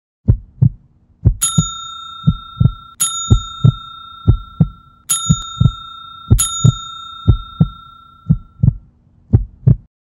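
Sound effects of a subscribe-and-bell reminder: low double thumps like a heartbeat, about once a second, with four bright bell dings ringing out over them.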